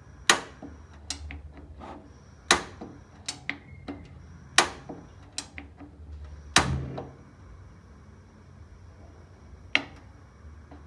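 Sharp knocks and clicks of hard objects being handled: five loud ones about two seconds apart, with lighter taps in between.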